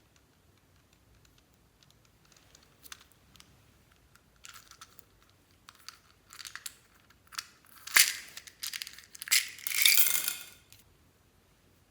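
Slime being squeezed and worked by hand: sticky clicks and crackles, sparse at first, then coming in louder, denser bursts, the loudest about eight seconds in and a longer one near the end.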